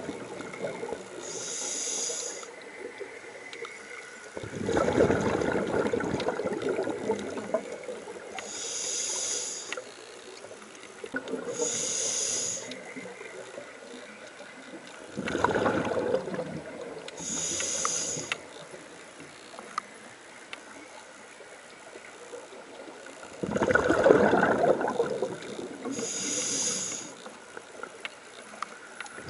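Scuba breathing heard underwater through a diver's regulator: short hissing inhalations through the demand valve alternating with longer, lower bursts of exhaled bubbles, several slow breaths with quiet gaps between them.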